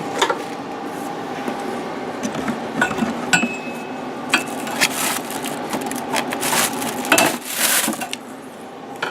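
Packaging and loose saw parts being handled and pulled from a shipping box: rustling and scraping with scattered knocks and clicks, denser rustling from about halfway through to near the end.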